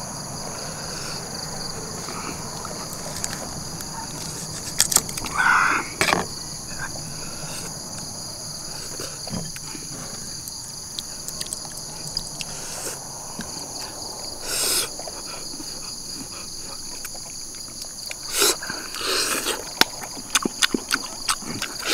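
Insects chirring steadily in several high tones, with short wet clicks and smacks from a person chewing and eating, most of them near the end.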